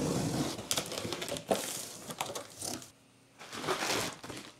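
A knife slitting the packing tape on a cardboard box, with scraping and clicks. Near the end comes a burst of crinkling from plastic air-cushion packaging being lifted out of the opened box.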